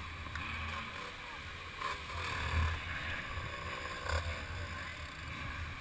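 Muffled, uneven low rumble of 65cc two-stroke motocross bikes idling and moving slowly, heard through a helmet camera's housing, with faint voices around.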